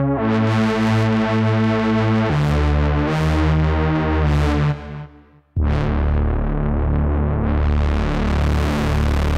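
Cherry Audio Octave Cat software synthesizer, an emulation of the 1976 Octave CAT duophonic synth, playing a lead patch. Held notes change pitch twice and die away about five seconds in. A new held note follows and grows brighter as the filter cutoff is raised.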